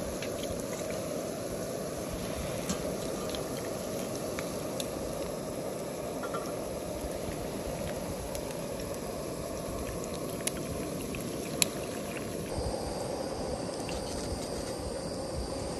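Pot of dashi stock boiling with a steady bubbling hiss, and a few light clicks, the sharpest about three-quarters of the way through.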